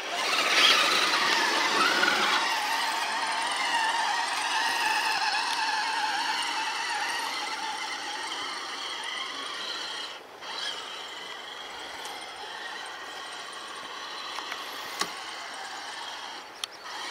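High whine of an RC crawler truck's electric motor and gears as it creeps down a steep dirt slope, the pitch wavering with the throttle. It drops out briefly about ten seconds in.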